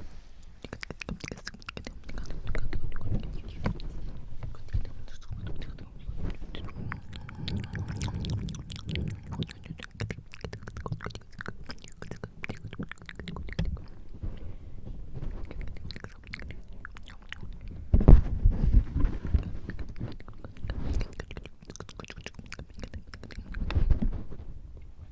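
Wet mouth sounds right at the microphone: a dense run of small clicks, smacks and tongue noises with breathy, wordless inaudible whispering. Breath blows onto the microphone as low rumbling gusts, strongest about three quarters of the way through and again near the end.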